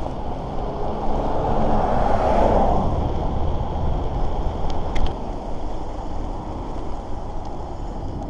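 Wind buffeting a handlebar-mounted GoPro's microphone, over the rolling tyre noise of a gravel bike on pavement. A passing vehicle swells and fades about two seconds in, and there is a single sharp click about five seconds in.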